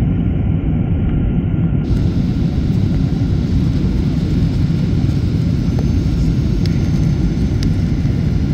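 Steady low rumble inside the cabin of a Boeing 737-800, from its CFM56-7B jet engines and the airflow, heard from a window seat over the wing on descent. A faint steady whine sits above the rumble.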